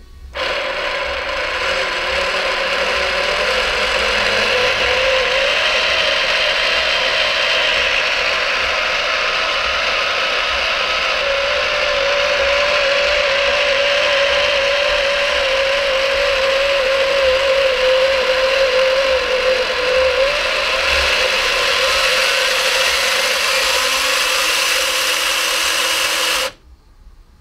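Traxxas TRX4 rock crawler's electric motor and drivetrain, fitted with front overdrive and rear underdrive gears, running with the wheels spinning free in the air: a steady gear whine that wavers slightly in pitch as the throttle varies. It stops abruptly near the end.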